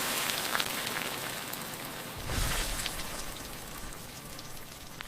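Masala- and rice-flour-coated okra slices deep-frying in hot oil in an iron kadai: a dense sizzle full of fine crackles that slowly dies down. There is a short low rumble about two and a half seconds in.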